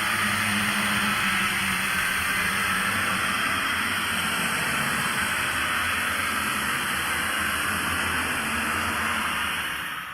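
A steady, airy hissing noise with a faint low hum beneath it, fading away at the very end.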